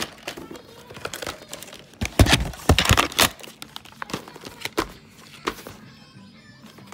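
Plastic VHS clamshell case and cassette being handled: irregular clicks, clacks and rustling, busiest and loudest from about two to three seconds in.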